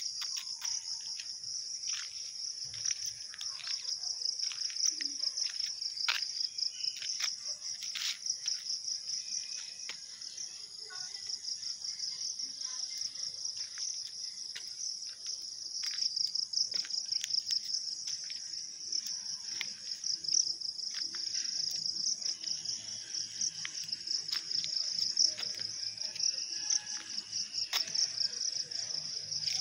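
Crickets and other insects chirping in a steady, high-pitched chorus with a fast pulse, with occasional light clicks over it.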